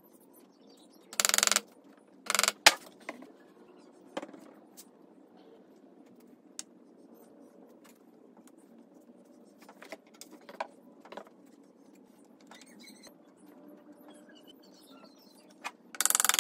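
Hand-handling of wooden parts: a small wooden block scraped and knocked against the pine frame of a chess board. There are two short rasps about a second apart near the start, a sharp knock right after, and scattered light clicks and taps, with more rasps near the end.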